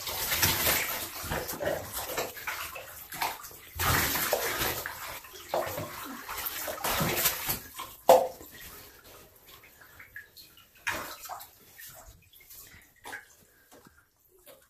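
Bath water splashing as a beagle puppy is rinsed in a bathtub, with louder splashes near the start, about four seconds in and about seven seconds in. A sharp knock comes about eight seconds in, and after it only softer drips and sloshes.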